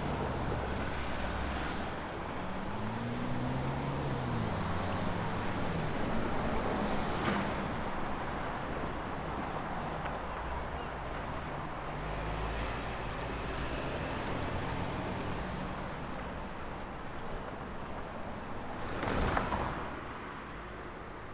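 Road traffic: cars passing at a moderate level. An engine's pitch rises and falls a few seconds in, and a vehicle passes close near the end.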